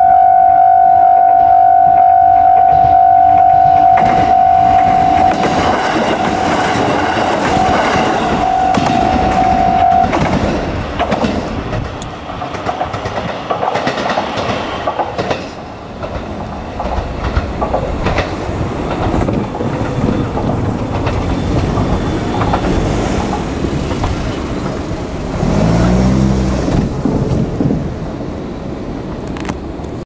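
Level crossing warning bell ringing steadily, stopping about ten seconds in. A KiHa 200 diesel railcar runs over the rails with wheel clatter and engine noise; near the end the engine's pitch rises as it comes close.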